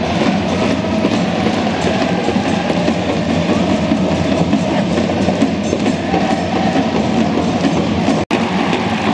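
Large crowd of football supporters in a stadium, cheering and chanting as a steady roar. The sound drops out briefly near the end, then the crowd is heard again.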